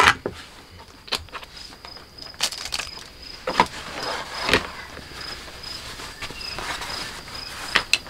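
Leather and canvas being handled and folded on a work table: soft rustling with scattered light clicks and taps, a few a little louder about three and a half seconds in. A faint high-pitched insect chirp repeats steadily behind it.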